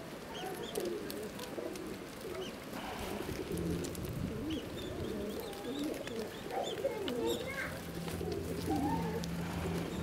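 Feral pigeons cooing continuously from a flock on the ice, with faint short chirps of small birds and scattered light ticks. A low steady hum joins in about three and a half seconds in.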